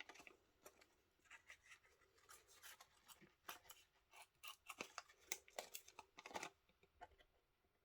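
Scissors snipping off excess clear plastic packaging stuck over a card: a run of quiet short snips that thin out near the end.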